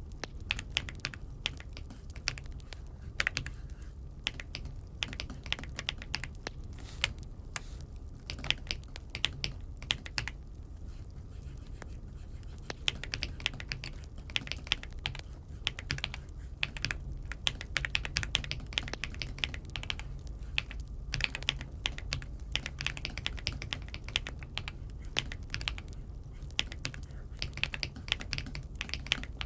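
Typing on an Aula F75 mechanical keyboard: irregular runs of quick key clicks with brief pauses, over a steady low hum.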